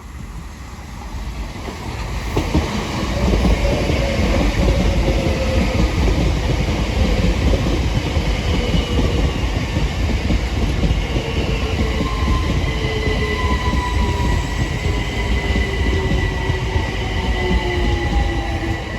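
A pair of Class 376 Electrostar electric multiple units running into the station and slowing, loud over a steady rumble of wheels on track. Their traction motors whine and slowly fall in pitch as the train brakes. The train grows loud over the first three seconds.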